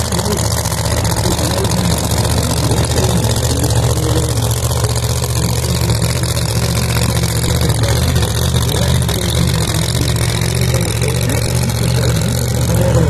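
Funny car's blown drag-racing engine running loudly and steadily at low speed while the car reverses to the start line after its burnout.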